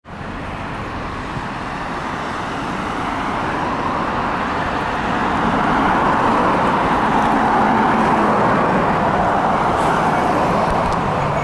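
Road traffic on a wide multi-lane street: steady tyre and engine noise of passing cars, with an Isuzu KC-LV one-step city bus approaching. The noise swells gradually over the first half or so and then stays loud.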